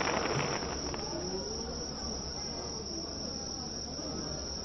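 A steady, unbroken high-pitched chorus of crickets and other insects. A short burst of noise comes in the first second.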